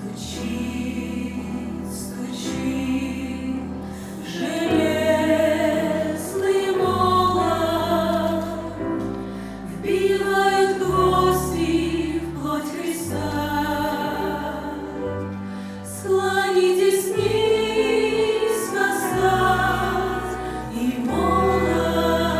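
Music: choral singing over sustained low bass notes, slow and steady.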